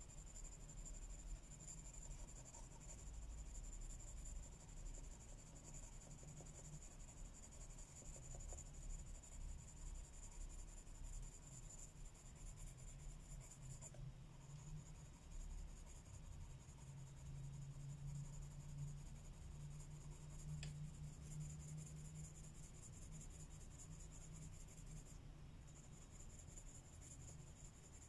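Faint, steady scratching of colouring strokes on paper as a grayscale illustration is coloured in.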